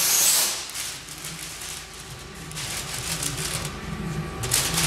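Large paper template sheet rustling and crinkling as it is handled and pulled over a wooden form: a loud swish at the start, then a run of quick crackles.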